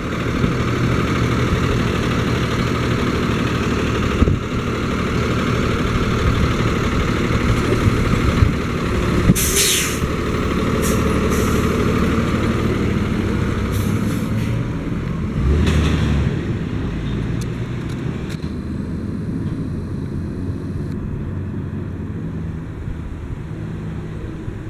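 Medium-duty delivery truck's engine idling, with a short hiss of air brakes releasing about nine and a half seconds in. The engine then pulls the truck away and its sound fades out toward the end.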